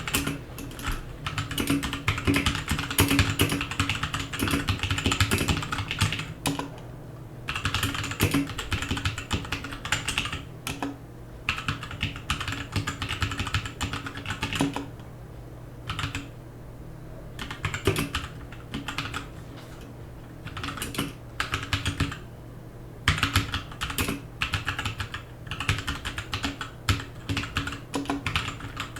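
Typing on a Royal Kludge RK61 60% mechanical keyboard with brown switches: rapid key clacks in runs, with brief pauses every few seconds.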